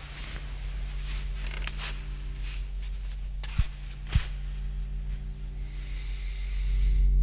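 Two bare-foot footsteps on a carpeted floor, dull low thuds about half a second apart, over a steady low hum, with faint rustling of bedding before them. Near the end a low drone swells up.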